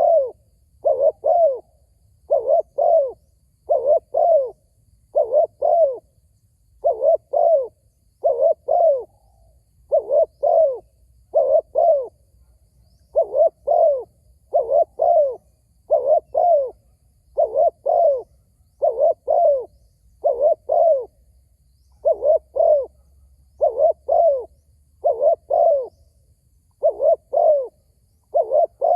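Spotted dove cooing over and over, each call a quick low double or triple note, repeated about once a second with a couple of brief pauses.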